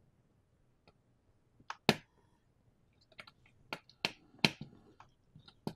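Small sharp clicks and ticks from a small screwdriver turning the screw terminals of a green plug-in connector on a 3D printer's control board, with fingers handling the wires. They come unevenly, few at first and then several a second, the loudest about two seconds in.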